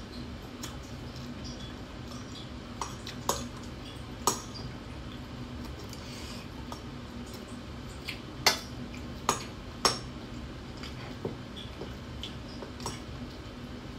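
Metal spoons and forks clinking against ceramic bowls during a meal: a few sharp, separate clinks, the loudest about eight and a half seconds in, over a steady low hum.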